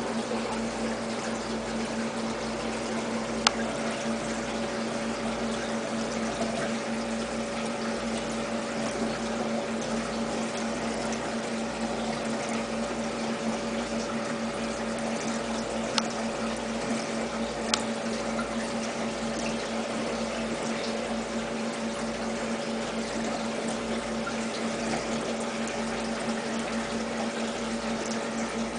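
A small pump running steadily, a constant hum over a hiss like running water. A few sharp clicks sound through it, the loudest about three and a half seconds in.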